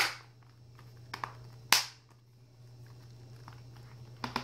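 Sharp clicks and taps from handling a plastic Windows tablet in the hands: one click at the start, a louder one nearly two seconds in, and a few fainter ticks, over a faint steady low hum.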